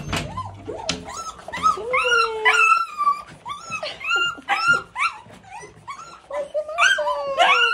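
Small dogs whining and yipping in quick, high-pitched calls, many falling in pitch, in an excited greeting.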